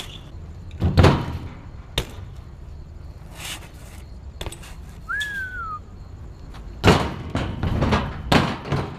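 BMX bike landing and clattering on concrete during tricks: several hard knocks of the wheels and frame hitting the ground, the loudest about a second in, at two seconds and near the end. A little after halfway a short whistle rises and then slides down.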